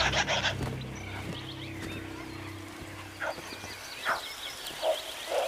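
Background music fading out, followed by a few short, separate bird calls in the second half.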